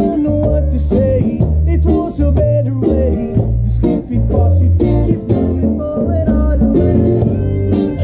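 A reggae band playing: a bass line with electric guitars, ukulele and percussion, and a melodic line bending in pitch over the top.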